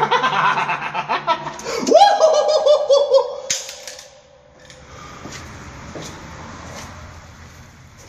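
A man's drawn-out villain's cackle: it starts in a lower voice, jumps higher about two seconds in and is held there with rapid pulsing, then stops about three and a half seconds in. After that it is quieter, with a few faint clicks.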